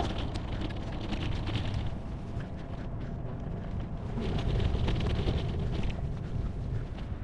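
Road bike ride: wind rumbling on the microphone with road noise from the bike, and two stretches of fast rattling clicks, one at the start and one about four seconds in.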